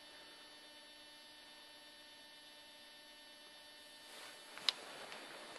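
Faint steady mains hum with a few steady tones from powered bench electronics (function generators and an oscilloscope). About four seconds in a soft rustling noise rises, with one sharp click shortly after.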